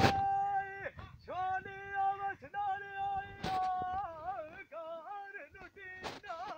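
A man singing Punjabi dholay without accompaniment in a high voice: long held notes that waver and slide in pitch, with short breaks between phrases. Sharp knocks come at the start, midway and near the end.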